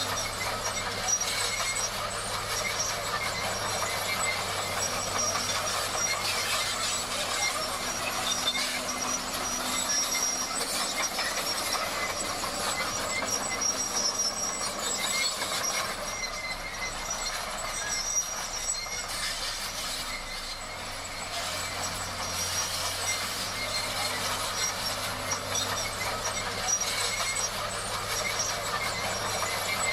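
Komatsu D58 crawler bulldozer working: a steady engine drone with the metallic clatter and intermittent high squeal of its steel tracks.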